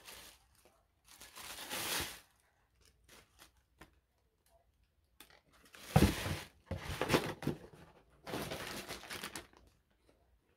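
Packaging being handled during an unboxing: rustling and crinkling in several bursts, with a sharp thump about six seconds in.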